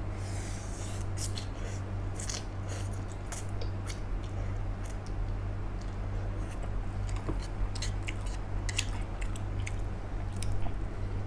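Close-up eating of spicy instant noodles with chopsticks: noodles slurped into the mouth in short bursts, with many wet smacking and chewing clicks. A steady low hum runs underneath.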